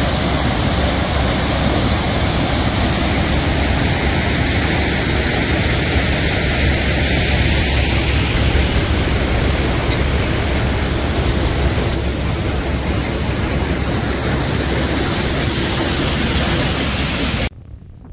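Loud, steady rushing noise that cuts off abruptly near the end.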